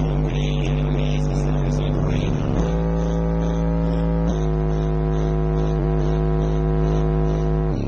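Two Clif Designs CD12W 12-inch subwoofers in a ported box playing long held deep bass notes, stepping to a new note twice.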